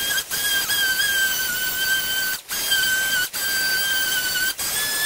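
Pneumatic orbital sander running against a car's rear hatch panel, a steady high whine over a hiss of air, its pitch wavering slightly as it is worked. The sound cuts out for an instant a few times.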